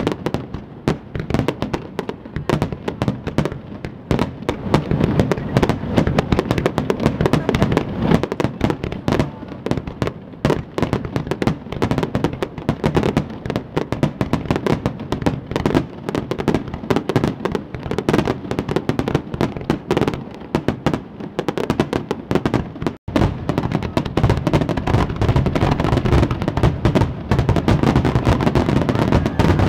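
Fireworks display: a dense, continuous barrage of aerial shell bursts and crackling reports, with a momentary cut-out about three-quarters of the way through.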